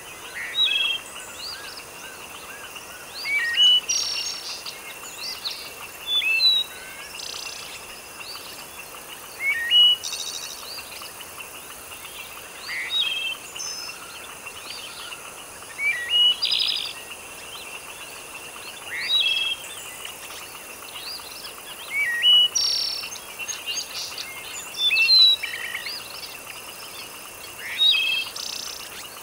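Birds chirping in short, quick phrases that come back every few seconds, over a steady background hiss and a thin, steady high drone.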